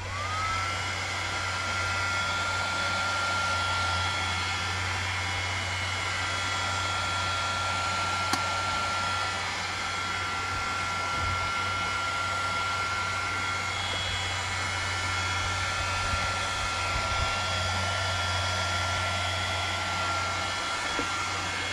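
Handheld electric heat gun switched on, its motor whine rising as it spins up and then running steadily with a rush of hot air, heating plastic milk-jug plastic to soften it.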